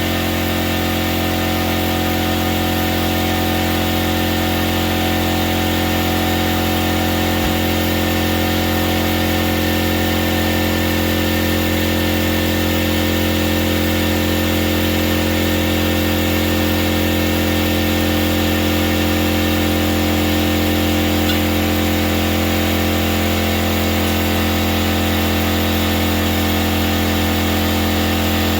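Air compressor motor running steadily and a little loud, supplying air to inflate a tire and seat its bead. One brief low knock comes about seven seconds in.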